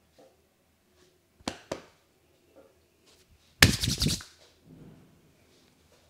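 Sharp percussive cracks from a hands-on massage: two single cracks, then a couple of seconds later a quick rattling run of cracks, the loudest sound here.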